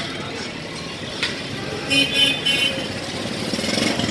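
Busy street traffic: motorcycle and car engines running and passing, at a steady level, with a few short knocks and a brief higher sound about two seconds in.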